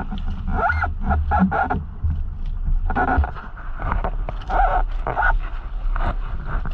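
Wind rumbling on the microphone aboard a small outrigger boat, with short voice-like calls breaking in several times.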